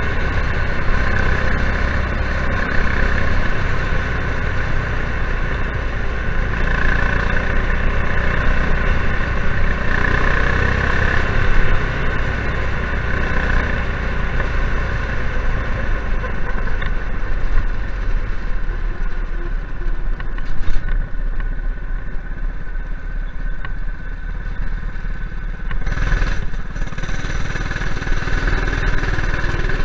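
Ken-Bar Streaker go kart's ex-dirt-track racing engine running hard at speed, heard on board. It eases off and grows quieter for several seconds past the middle, then picks up again a few seconds before the end.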